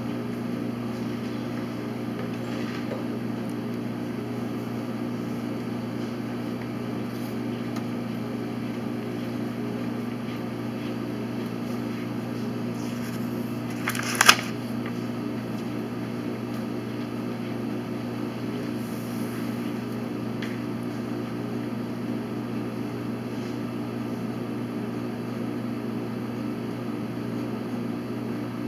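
Steady low hum, with a sharp double click about halfway through: a chess piece set down and the chess clock pressed.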